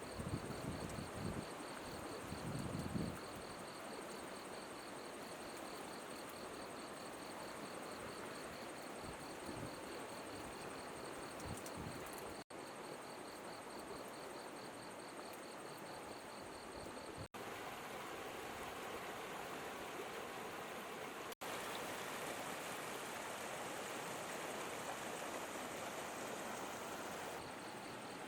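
River water flowing steadily, with insects trilling in a fast, high-pitched pulsing chirp over it. Low rumbles of wind on the microphone come in the first few seconds. The sound cuts out briefly three times.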